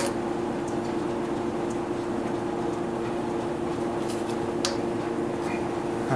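Steady mechanical hum in a workshop, with a few light clicks and taps scattered through it as small parts are handled.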